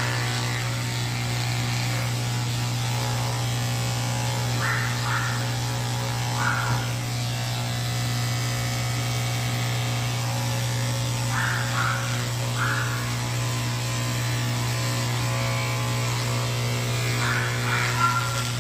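Cordless electric pet clipper running steadily as it shaves matted fur off a cat, a constant motor hum. Brief higher-pitched sounds come over it a few times, in groups of two or three.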